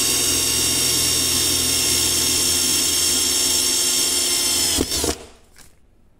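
Bosch GSR 120-LI 12 V cordless drill in second gear, a steady high-speed whine as a 3.5 mm bit drills into 3 mm steel box section. The motor stops a little under five seconds in, with one short burst just after.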